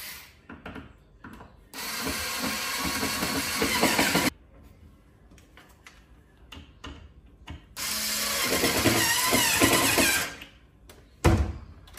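Electric screwdriver whirring in two runs of about two and a half seconds each, driving the screws of kitchen cabinet handles. A sharp knock comes near the end.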